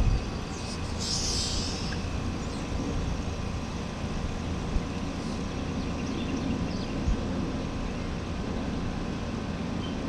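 2019 Trane XR14 air conditioner's outdoor unit running steadily just after starting up: a low compressor hum under the whoosh of the condenser fan. There is a short hiss about a second in.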